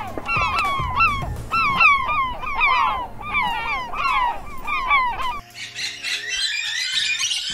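A northern gannet colony calling: many short calls, each falling in pitch, overlapping in quick succession. About five seconds in this gives way abruptly to a parakeet's squawking.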